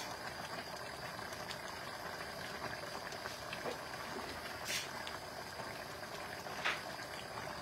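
Soup simmering in a pot on the stove, a steady low bubbling and crackle, with a couple of short clicks in the second half.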